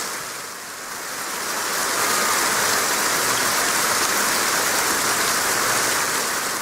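Large crowd applauding, dipping briefly about a second in and then swelling back to a steady, even clapping.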